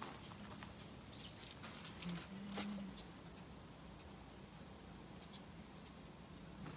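Quiet outdoor ambience with faint, thin, high-pitched chirps and short trills from small creatures, and a few soft knocks about two seconds in.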